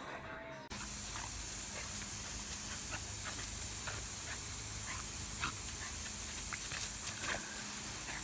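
Steady hiss of a garden hose spraying a hard jet of water, starting suddenly under a second in, with a few brief faint sounds over it.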